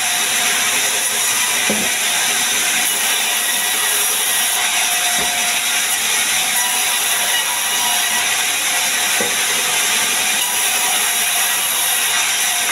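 Large vertical band-saw mill ripping a log into boards as it is pushed through the blade: a loud, steady, hissing whine that does not let up.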